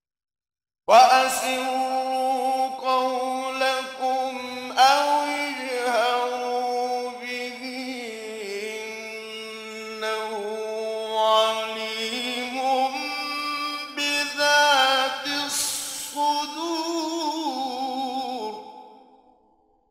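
A man chanting the Quran in melodic tajweed recitation: one long, ornamented phrase of held, wavering notes. It starts about a second in and fades out near the end.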